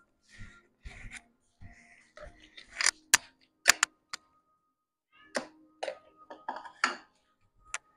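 Scattered sharp clicks and taps with soft shuffling in between, the handling noise of cat food bowls and feeding on a tile floor.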